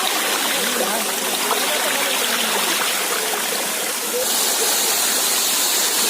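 Water of a small waterfall rushing steadily over rocks and into its pool, an even, unbroken rush of falling and flowing water.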